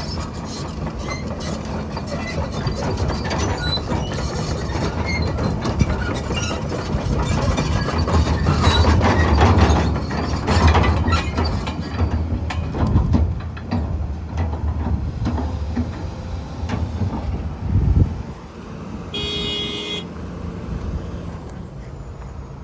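Komatsu PC210LC-10 hydraulic excavator working and travelling: the diesel engine and hydraulics run under load, with steady metallic clanking and rattling from the steel tracks and attachments. The engine swells loudest in the middle, a heavy thump comes near the end, and it settles quieter, with a short beep just after.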